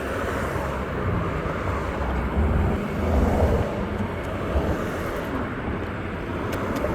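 Riding noise on a moving Bird electric rental scooter: a steady low rumble of wind on the microphone and wheels on the road, swelling about three seconds in.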